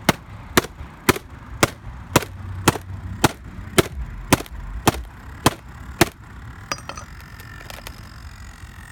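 Hard drive in an iBook clamshell laptop clicking over and over, a sharp click just under twice a second, which stops about six seconds in, leaving a faint high whine. A repeated click like this is typical of a damaged drive.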